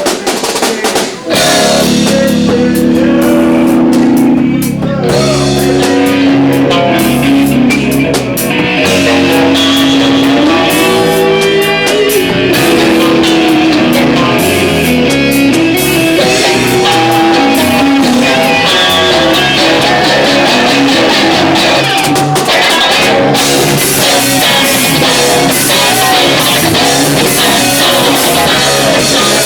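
Loud live rock band playing, with electric guitar and a drum kit. The playing drops briefly about a second in, then carries on steadily.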